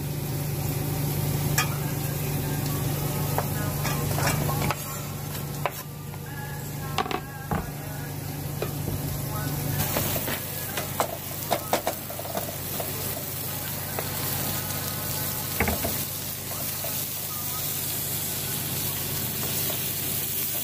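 Food sizzling as it fries in a pan, with a stirring utensil scraping and knocking against the pan now and then.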